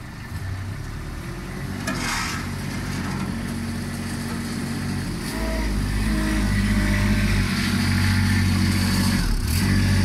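Knikmops mini articulated loader's engine running as it drives. The hum grows heavier and louder about five seconds in as the machine pulls forward.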